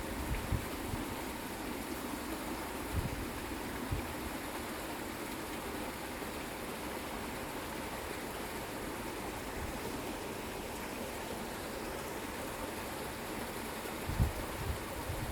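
Steady rushing of a small stream, with a few low thumps of wind on the microphone.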